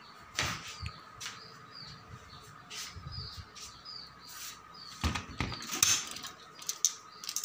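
A small bird chirping over and over in short falling notes, with scattered knocks and handling clicks that are loudest about five to six seconds in, over a faint steady high hum.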